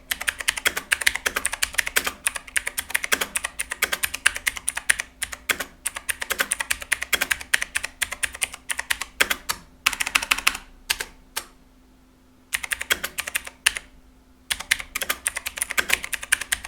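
Fast typing on a mechanical keyboard with clicky blue switches (Dixon blue, a Cherry MX Blue clone), each key giving a sharp click. The typing comes in quick runs with brief pauses about eleven and fourteen seconds in.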